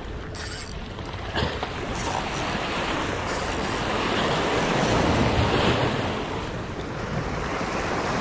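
Sea waves washing and splashing against breakwater rocks, with wind buffeting the microphone; the surf swells louder in the middle.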